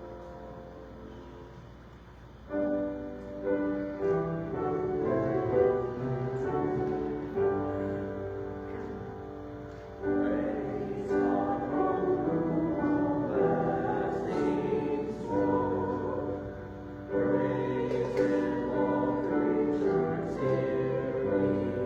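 Choir singing with piano accompaniment, in three phrases that start about two and a half, ten and seventeen seconds in, after a soft piano-only opening.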